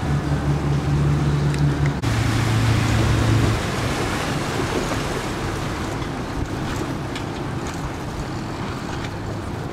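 Boat motor running with a steady low hum that drops lower about two seconds in and fades out after about three and a half seconds, leaving wind and water noise.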